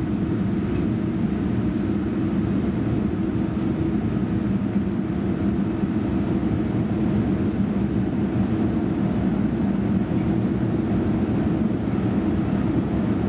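Steady drone of engines and rushing air inside a Boeing 787-9's passenger cabin in the climb after take-off, a constant low rumble with a steady hum underneath.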